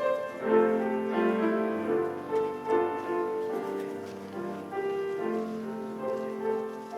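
Keyboard accompaniment playing a slow instrumental introduction to a sacred song, with held notes and chords.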